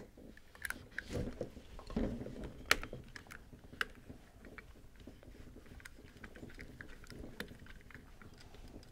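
Allen wrench backing out the last end-cap bolt on a Clack WS2 water softener valve: faint scattered clicks and light handling noises, with a couple of sharper clicks about three and four seconds in.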